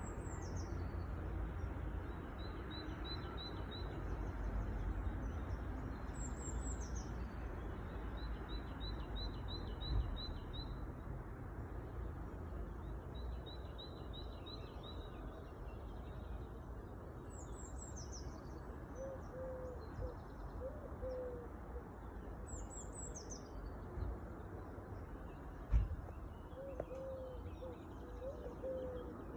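Small songbirds calling with repeated high, falling chirps and short rapid trills over a steady low rumble. Through the second half a pigeon coos in low notes, and a single knock sounds near the end.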